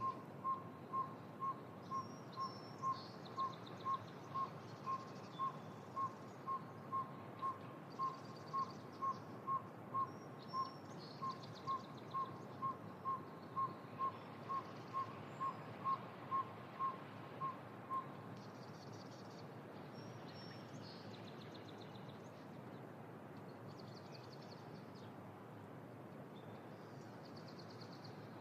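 A small owl tooting a long, even run of whistled single notes, about two a second, which stops about two-thirds of the way through. Small birds chirp now and then over a steady background hiss.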